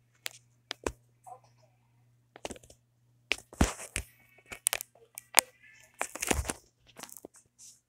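Irregular clicks, crackles and rustles of a handheld camera being handled and moved, over a faint low steady hum that stops near the end.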